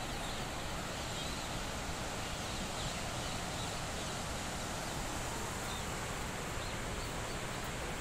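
Steady outdoor hiss of wind and open-air ambience, with a few faint, scattered bird calls.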